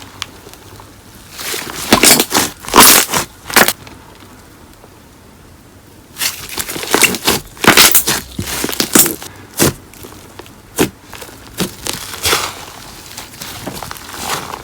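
Slime mixed with paper clay being squeezed and kneaded by hand, giving crackly, crinkling squishes in two runs of a few seconds, then scattered single crackles.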